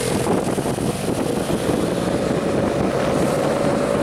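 Car running on a mountain road, heard from inside the moving car, with wind rushing over the microphone. A steady engine note under the noise rises slightly in pitch.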